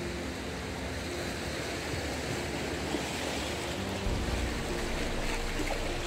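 Small sea waves washing and splashing against shoreline rocks, a steady hiss of surf that grows a little louder and fuller about four seconds in.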